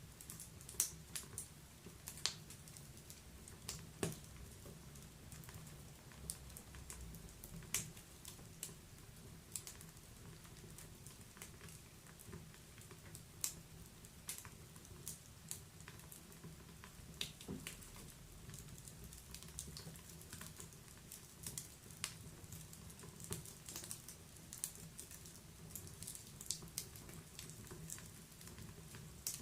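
Wood fire in a fireplace crackling: irregular sharp pops and snaps scattered over a low, steady rumble.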